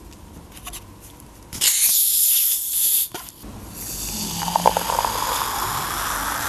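Plastic bottle of Sprite soda opened with a sharp hiss of escaping gas lasting over a second, then the soda poured into a glass, fizzing and splashing, the pouring note slowly rising as the glass fills.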